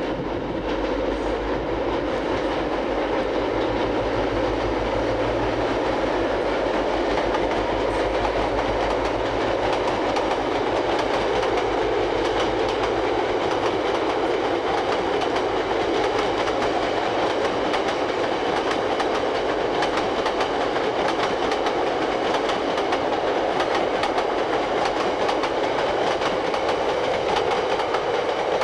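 Freight train wagons rolling past on jointed track, the wheels clattering steadily over the rail joints. A low diesel locomotive drone is heard in the first half and fades out as the wagons keep passing.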